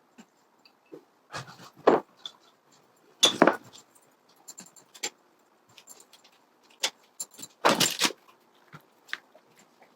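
Kitchen handling noises: irregular metallic clinks and rattles of utensils and dishes, in several sharp bursts a second or two apart.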